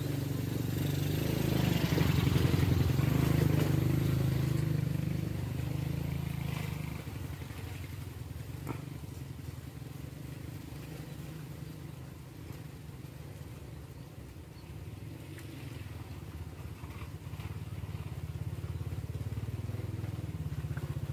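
A small engine running with a low hum, growing louder over the first few seconds and then fading back to a steady, lower level.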